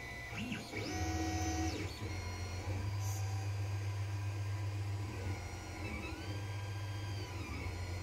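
Creality Ender 5 3D printer running: its stepper motors whine in pitched tones that rise, hold and fall as the print head makes its moves, twice over, above the steady hum of its cooling fans.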